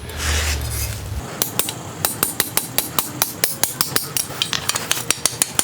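Blacksmith's hand hammer striking a 1/4 x 1 inch steel bar wrapped around a drift on the anvil, closing up a rolled hinge barrel. It starts with a hiss in the first second, then settles into quick, even blows at about four a second.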